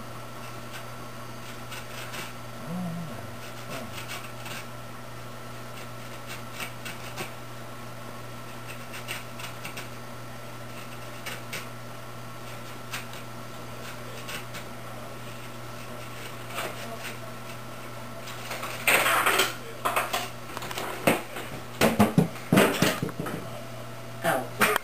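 Faint scratching and rustling over a steady electrical hum. In the last few seconds come several louder, sudden noisy sounds.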